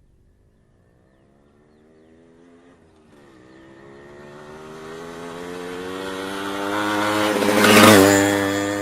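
A motorbike approaching from a distance, its engine rising in pitch as it accelerates, with a short dip about three seconds in like a gear change. It passes close by just before the end, loudest there, and the engine note drops in pitch as it goes away.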